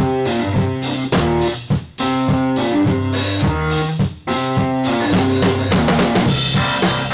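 Intro music with a steady drum beat under pitched instrument lines.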